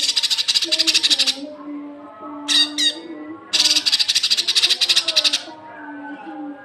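Cucak kinoi songbird giving harsh, rapid chattering rattles about two seconds long, twice, with a pair of quick sharp call notes between them. The pattern repeats like a looped song recording, and a fainter lower tone runs underneath.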